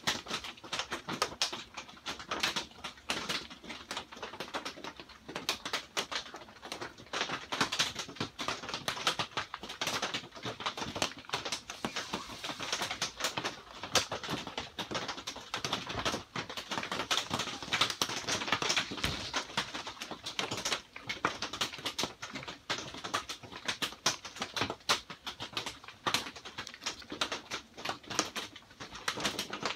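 Rain drumming on a greenhouse's corrugated plastic roof panels: a steady, dense crackle of many small drop impacts.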